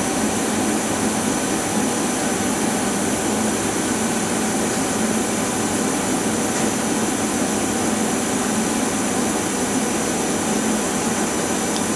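Femco HL-25 CNC turning center's spindle running steadily at 1200 RPM, its empty chuck spinning. It makes a steady whirring hiss with a thin, constant high whine on top.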